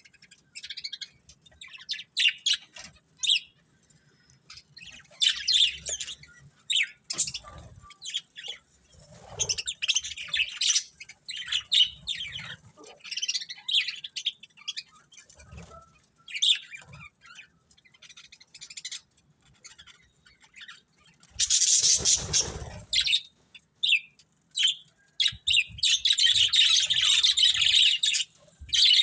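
Pet budgerigars chirping and chattering in short, irregular bursts of high-pitched calls. A brief louder burst of noise comes about two-thirds of the way through, followed by a dense run of chatter near the end.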